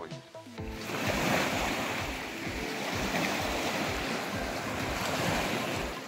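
Waves washing onto a sandy reservoir shore, a steady rush of surf that starts about a second in, with some wind on the microphone.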